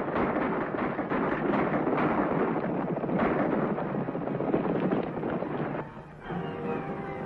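Rumble of many horses galloping, a dense noise with sharp cracks through it. About six seconds in it drops away and orchestral film music begins.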